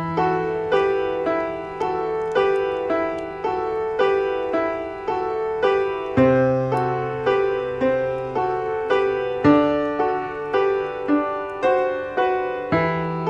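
Background piano music: a gentle melody of evenly struck notes, about two a second, over held bass notes that change every few seconds.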